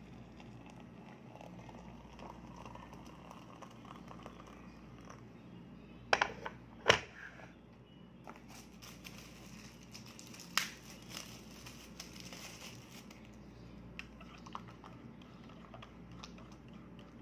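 Things handled on a table while making a hot drink: a few sharp knocks, the loudest a close pair about six to seven seconds in and another about ten and a half seconds in, then light ticks of a spoon stirring in a ceramic mug near the end, over a low steady hum.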